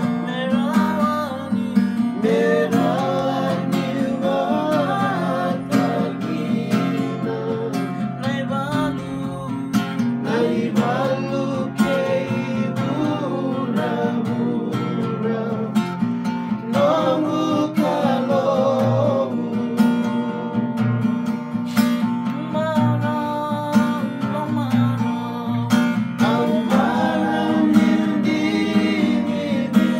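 Acoustic guitar strummed while men sing along in a steady, continuous song.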